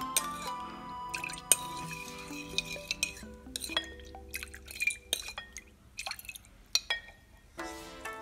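Metal spoon stirring a thin liquid in a ceramic bowl, clinking against the bowl's side several times, with small splashes and drips, over background music.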